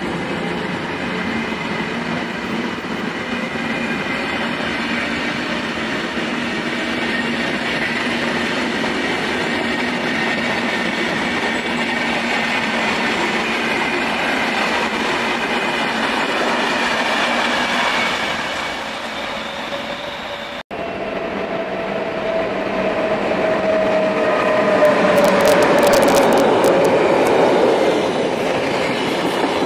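SBB passenger coaches rolling past at speed: a steady rumble and clatter of wheels on the rails. The sound drops out for an instant about two-thirds through. After that it grows louder, with a slowly falling wheel squeal and a few sharp clicks.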